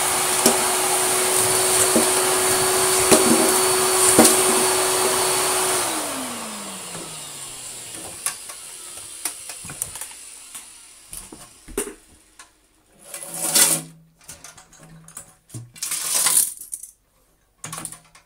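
Goblin Aquavac 620 tub vacuum cleaner, fitted with a Vax motor, running at full suction with a steady whine, toy cars clacking up the hose a few times. About six seconds in it is switched off and the whine falls away as the motor winds down. Then come a few separate knocks and rustles as the machine is handled.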